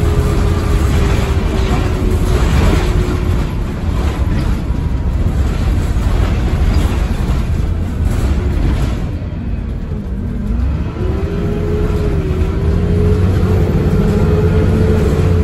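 Double-decker bus's diesel engine and drivetrain running under way, with a steady whine over the engine noise. The sound eases and the whine drops in pitch about nine to ten seconds in, then both build again from about eleven seconds.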